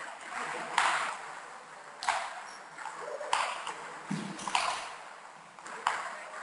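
Table tennis rally: the ball is knocked back and forth, giving about five sharp clicks, roughly one every 1.2 seconds, each echoing briefly in the hall.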